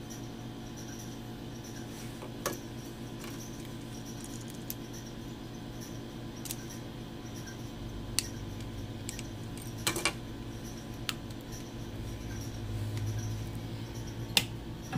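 Scattered sharp clicks and taps of a Samsung Galaxy J1 mini's plastic housing being handled and worked at with a small tool, about half a dozen in all, with a double click about two-thirds of the way through. A steady low hum runs underneath.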